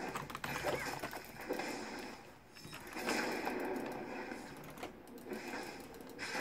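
Typing on a full-size plastic computer keyboard: rapid clattering keystrokes in bursts, with brief pauses between runs.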